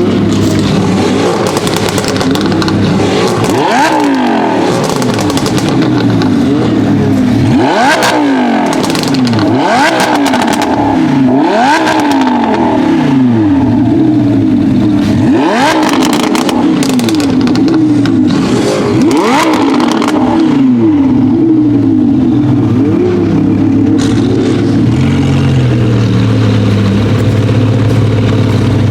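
Mercedes-AMG GT R's 4.0-litre twin-turbo V8 through an Fi aftermarket exhaust, revved hard in short, sharp bursts about six times, with crackles and pops as each rev falls back. In the last few seconds it settles to a steady idle.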